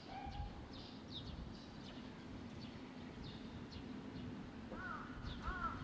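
Fledgling barn swallows repeat thin, high, downward-sweeping chirps, the calls of young waiting to be fed. From about five seconds in, another bird's lower, arched calls repeat about twice a second.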